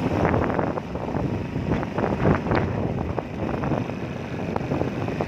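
A moving vehicle's rumble and road noise, with wind buffeting the microphone in uneven gusts.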